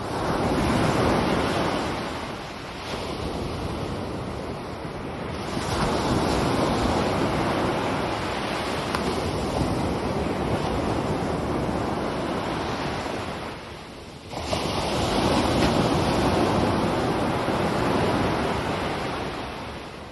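Recorded sound effect of ocean waves washing on a shore, played over the theatre's speakers, swelling and falling in three long surges and fading out at the end.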